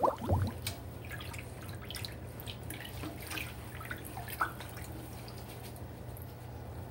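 Water running into a stainless steel sink while a soapy sponge is squeezed under it by a gloved hand: a steady wash of water with scattered drips and splashes, one sharper splash about four and a half seconds in.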